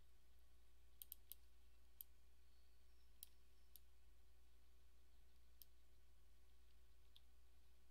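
Faint computer mouse clicks, about eight at irregular intervals, over near-silent room tone with a low steady hum.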